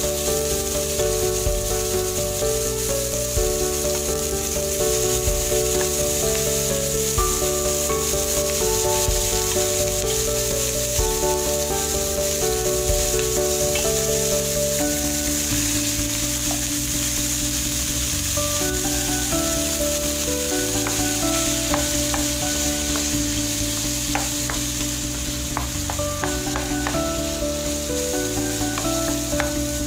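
Ground beef sizzling as it fries in hot oil in a nonstick wok, stirred and broken up with a wooden spatula, with a scatter of clicks from the spatula on the pan in the second half. Background music with sustained notes plays over it.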